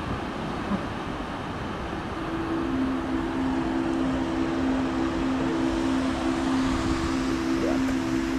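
Steady rushing noise of wind and surf. About two seconds in, two held low notes of background music come in.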